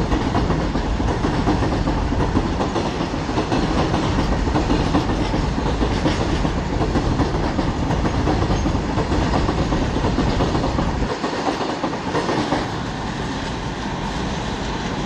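Long goods train of loaded covered freight wagons rolling past at speed: a steady rumble and rattle of steel wheels running on the rails. The deep rumble eases briefly about eleven seconds in.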